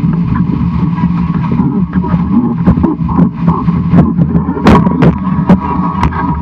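Wind buffeting the microphone and water rushing past the hull of a fast-sailing 18-foot skiff, over a steady hum. From about halfway on, sharp splashes of spray and the bow slapping through chop come several times a second.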